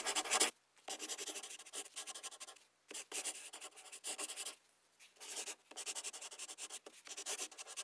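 Dry scratching in several short runs of quick strokes, with brief pauses between them.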